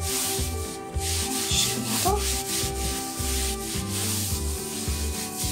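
Palms rubbing and smoothing cloth flat onto a glued wooden piece, a dry swishing rub in repeated strokes.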